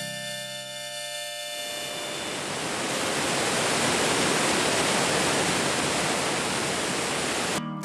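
Steady rushing of water, like a waterfall or stream, swelling over the first couple of seconds as sustained music notes fade out. About half a second before the end it cuts off abruptly and rhythmic music starts.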